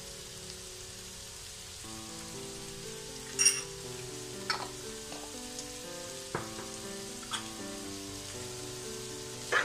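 Chopped vegetables frying in oil in a pot with a steady sizzle, broken by a few sharp taps. A soft background melody comes in about two seconds in.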